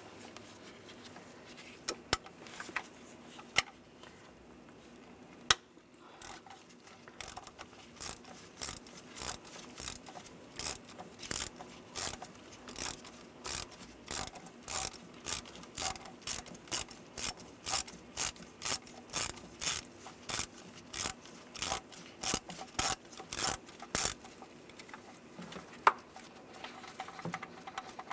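Hand ratchet with an E8 socket clicking as it backs out an oil filter housing bolt. A few scattered clicks lead into a steady run of ratchet strokes, about two a second, which stops a few seconds before the end.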